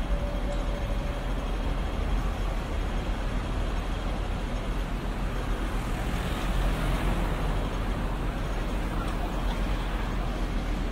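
Steady low rumble and hiss of distant city traffic, swelling a little about six seconds in.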